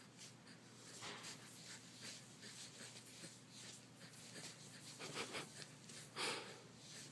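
Faint, quick breathy huffs from an excited baby, the loudest two coming about five and six seconds in, over a faint steady hum.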